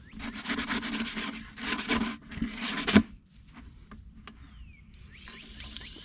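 A stiff brush scrubbing the inside of a plastic chicken waterer in quick strokes, ending in a sharp knock about three seconds in. Near the end a garden hose starts running water into the waterer with a steady hiss.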